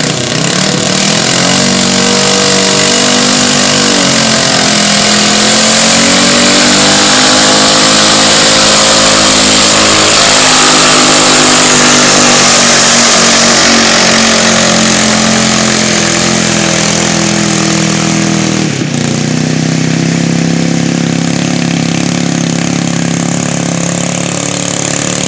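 Modified garden pulling tractor's engine running loud at high revs under heavy load as it pulls a weight-transfer sled. The engine pitch sags about four seconds in, then holds. Near the end it drops out for a moment and runs on steadier and a little quieter.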